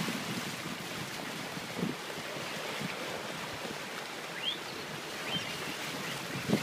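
Steady wind buffeting the microphone over the sound of choppy sea water around a boat, with a couple of faint, short rising high chirps about four and a half and five seconds in.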